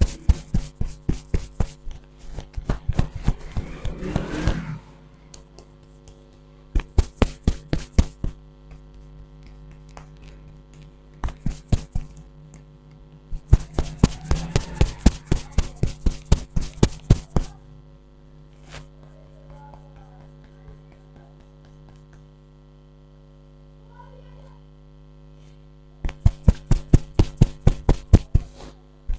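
Rapid hand strikes on a person's head during a head massage, sharp slaps at several a second in bursts of one to four seconds with short pauses between. A steady electrical hum runs underneath.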